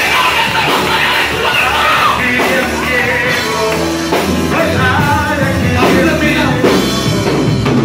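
Loud live worship music from a church band with a drum kit, with voices over it.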